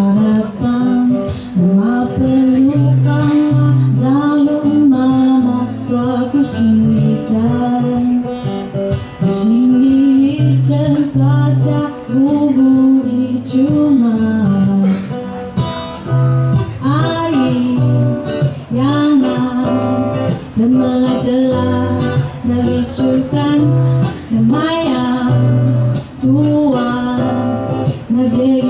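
A woman singing a song, accompanied by an acoustic guitar.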